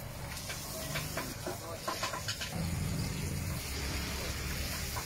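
Hot oil on a large flat tawa hissing and sizzling as masala-coated fish pieces are slid into it to shallow-fry, with a few small clicks and splutters.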